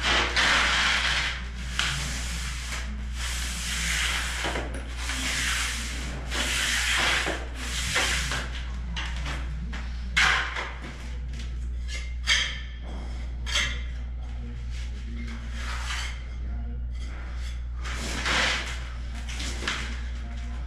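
A trowel scraping over a fresh sand-cement mortar shower floor bed, smoothing it in strokes about once a second for the first eight seconds, then only a few scattered strokes, over a steady low hum.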